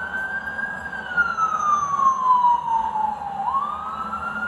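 Emergency vehicle siren wailing: its pitch holds high, falls slowly over about two and a half seconds, then climbs again near the end.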